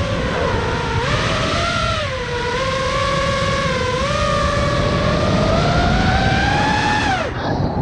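FPV racing quadcopter's brushless motors and propellers whining, the pitch creeping slowly upward with the throttle and then dropping sharply near the end as the throttle is cut. A low rush of wind on the onboard camera's microphone runs underneath.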